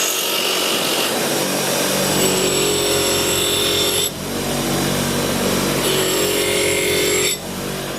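Powered wire wheel brushing rough-forged rail-spike steel: a steady motor hum under a harsh hiss of the bristles on the metal. The work eases off about four seconds in, is pressed on again about two seconds later, and eases again near the end.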